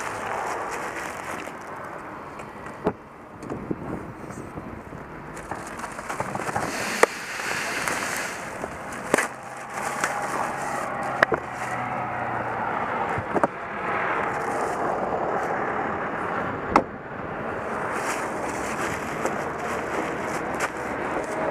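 Handling noises at a car: scattered sharp clicks and knocks over a steady rushing noise, with plastic rustling about ten seconds in as a plastic sheet is handled in the open trunk.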